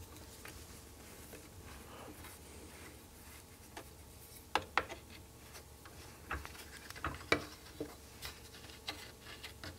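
Quiet handwork with a screwdriver backing an old brass screw out of a wooden tripod leg, then, from about halfway, a scatter of small sharp clicks and taps as the screwdriver and the loosened screw are handled.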